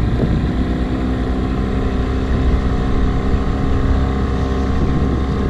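Boat engine running at a steady speed, an even drone that does not change.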